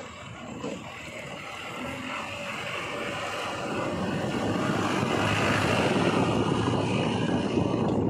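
JCB 3DX backhoe loader's diesel engine running as the machine drives along, growing louder from about three seconds in as it comes close.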